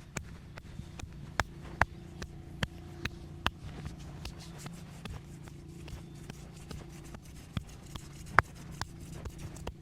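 Quick, irregular slaps and taps of bare hands striking a person's head and back during a percussive massage, with a much louder sharp smack near the end, over a low steady hum.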